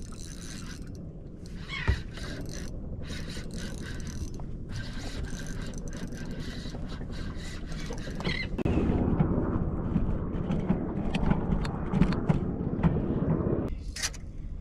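Fishing reel being cranked as a striped bass is reeled in, its gears whirring with clicks. The sound turns louder and rougher for about five seconds near the end, with a sharp click about two seconds in.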